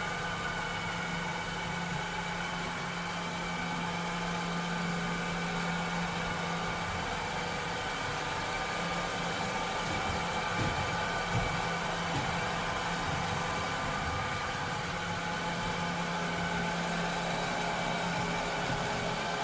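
Cleaning robot running: a steady motor whir with a low hum, and a few faint knocks about ten to twelve seconds in.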